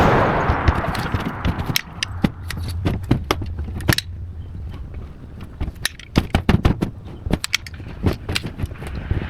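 Twigs and small branches snapping and cracking in quick, irregular bursts over a low steady rumble. The rush of a passing vehicle fades out in the first second or two.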